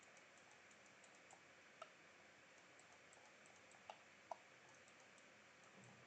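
Near silence with a few faint, sharp clicks of computer keyboard and mouse use, the clearest three about two, four and four and a half seconds in.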